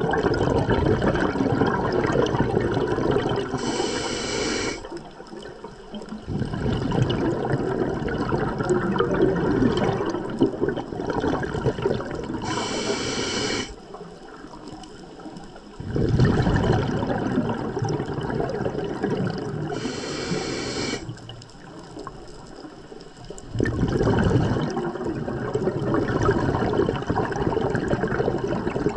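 Scuba diver breathing through a regulator underwater. Three short hisses of inhalation come about 4, 13 and 20 seconds in. After each one, and a brief pause, comes several seconds of bubbling, rumbling exhalation.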